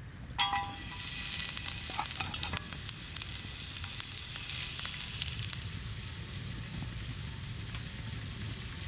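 Food frying in a hot metal pan with a steady sizzle. About half a second in, metal strikes metal with a ringing clank, and a few lighter clinks follow around two seconds in.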